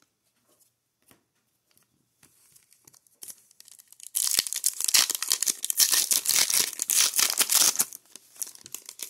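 A foil pack of Skybox Metal Universe hockey cards being torn open by hand: a soft rustle about two seconds in, then loud, dense crinkling and tearing of the foil wrapper from about four seconds in, stopping about a second before the end.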